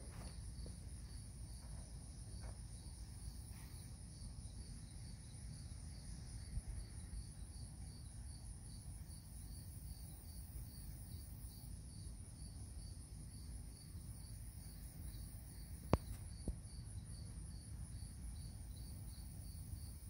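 A faint, steady, high-pitched insect trill with a regular pulsing, over low background rumble. A single sharp click about sixteen seconds in.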